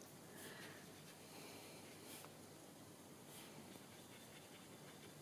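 Near silence, with a few faint, soft swishes of a paintbrush on watercolour paper.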